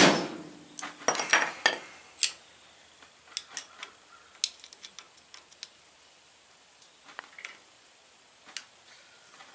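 Steel hammer striking a screwdriver wedged against the front wheel hub's dust cap, several sharp metallic strikes in the first two and a half seconds. After that come lighter scattered metal clicks and scrapes as a screwdriver pries at the hub centre.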